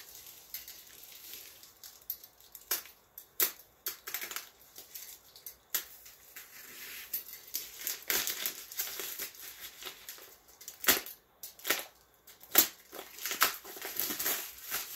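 Plastic packaging crinkling and crackling as it is handled and pulled off, with irregular sharp snaps.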